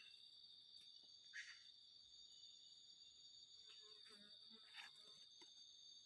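Faint steady high-pitched drone of forest insects, with a few brief soft sounds over it about a second in and again near the end.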